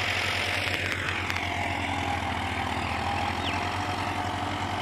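Massey Ferguson 385 tractor's diesel engine running steadily with an even low pulse while it pulls a ridger through the field.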